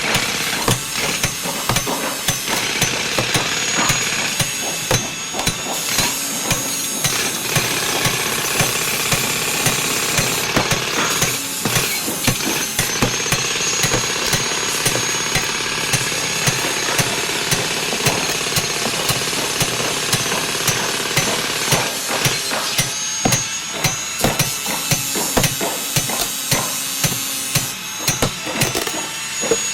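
Construction site noise: many sharp, irregular knocks and hammer blows over a steady din of machinery.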